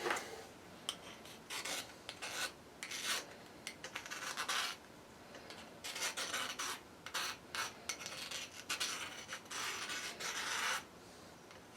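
Hand tool scraping and rubbing against plastic in irregular strokes of varying length, to clear away melted plastic that is stuck.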